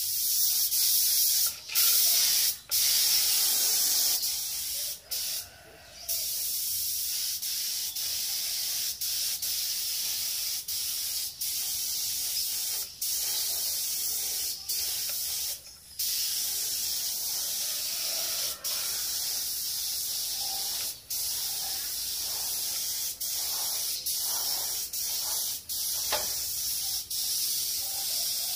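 Compressed-air spray gun hissing steadily as it sprays clear coat, cutting out briefly many times, the longest break about five seconds in.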